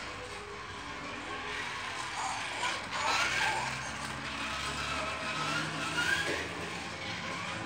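Hot Wheels AI toy race car running on a cardboard track: its small electric motor whines, rising and falling in pitch as it speeds up and slows through the turns.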